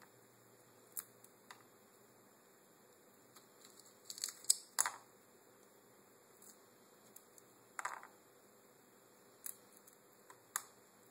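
Sparse small cracks and clicks of a crab's shell being broken apart by hand as its legs are pulled off and its top shell is prised away. The loudest cracks come about four to five seconds in, with more around eight seconds in.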